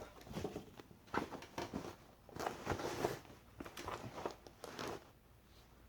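A canvas tote bag being handled and opened, its fabric and hardware rustling and scraping in a string of short, irregular bursts.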